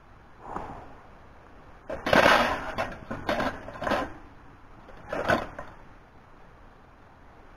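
A round wire grill rack set down and shifted on the rim of a tin-can wood stove: a few short metal clanks and scrapes, the loudest cluster about two seconds in and another a little after five seconds.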